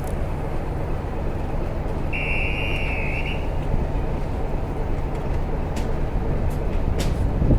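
Class 33 diesel locomotive idling before departure, its Sulzer eight-cylinder engine giving a steady low rumble. About two seconds in, a single shrill whistle blast of just over a second sounds above it, and a few sharp clicks come near the end.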